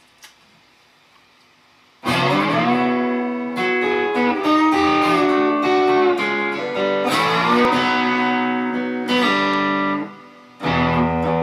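Squier Stratocaster electric guitar playing a slow blues intro with a bottleneck slide, sustained notes sliding in and out. It starts abruptly about two seconds in, breaks off briefly near the end, then comes back in on lower notes.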